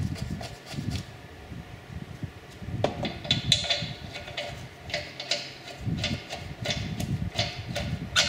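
Wheel nuts being spun onto the wheel studs by hand: a run of light, irregular metallic clicks and scrapes as the threads turn. A faint steady hum lies underneath.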